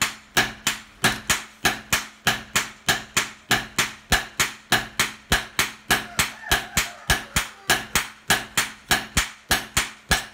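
Two hand hammers striking a steel gyuto blade in turn on a steel-post anvil: a steady metal-on-metal clanging of about four blows a second, alternately louder and softer.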